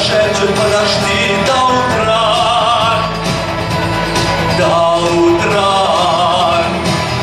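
A male singer performing a song with instrumental accompaniment.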